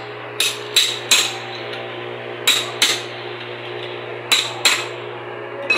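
Sharp metallic knocks of steel tools striking on a car AC compressor's clutch hub: eight strikes in quick groups of two or three, each with a brief ring, over a steady low workshop hum.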